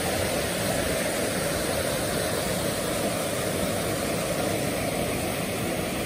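Small mountain waterfall and stream rushing steadily over rocks into a pool, heard close up as an even, unbroken rush of water.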